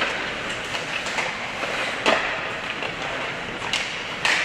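Ice hockey game play in an arena: a steady hiss of skates and crowd, with sharp clacks and knocks of sticks and puck, the loudest about two seconds in and again near the end.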